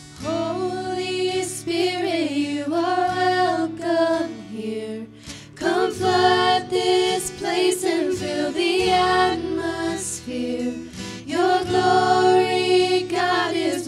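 Several women's voices singing a slow worship song together in harmony, with an acoustic guitar underneath.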